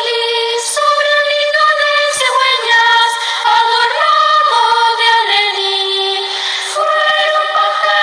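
Children's choir singing a Christmas carol (villancico) in high voices, moving through long held notes.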